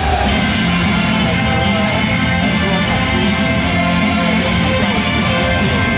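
Loud rock-style baseball cheer song with guitar.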